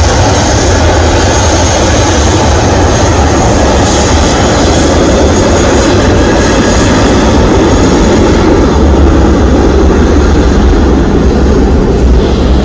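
Jet airliner's engines running on the runway: a loud, steady rumble with a hiss above it that does not let up, the low rumble a little heavier near the end.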